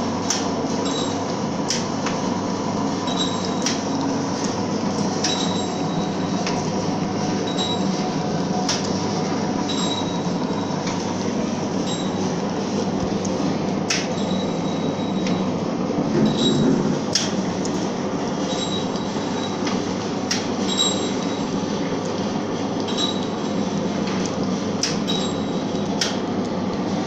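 Pouch packing machine running with a steady mechanical hum. A sharp click comes about every second and a half, and short high-pitched tones repeat between the clicks, in time with the machine's sealing and cutting cycle on the sachet strip.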